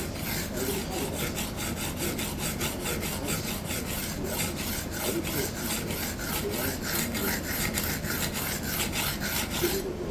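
Hard Japanese steel knife edge scraped back and forth, held at 90 degrees across a coarse diamond sharpening plate. It makes a rapid rhythmic scraping at about three strokes a second as the edge is ground down past its chips to reset the cutting bevel. The strokes stop just before the end.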